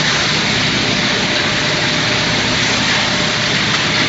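Industrial rotary drum dryer running: a steady, even machine noise with no breaks or changes.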